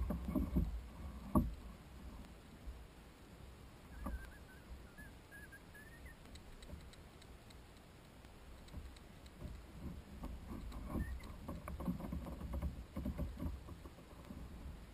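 Knocks and thumps on the hull of a fishing kayak as the angler shifts and handles his line. There are a few sharp ones in the first second or so, then low rumble, then a cluster of softer knocks near the end.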